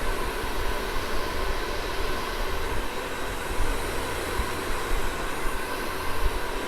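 Handheld hair dryer blowing steadily, a constant airy rush with a faint motor whine, drying hair-holding spray on the lace frontal until it turns tacky.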